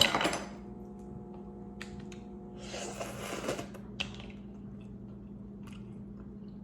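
Crab legs being cracked and picked apart for eating: a few small sharp clicks of shell and a brief crunchy crackle about three seconds in, over a steady low hum.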